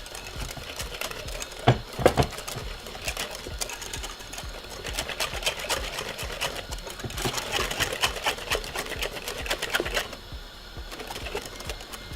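Whisk beating a cornmeal, coconut milk and milk mixture in a bowl: a fast run of clicks, busiest in the middle stretch.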